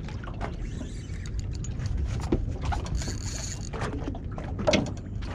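Water slapping and washing against the hull of a small boat, with scattered clicks and knocks from a spinning reel and rod as an angler strikes and fights a hooked fish, and one louder knock near the end.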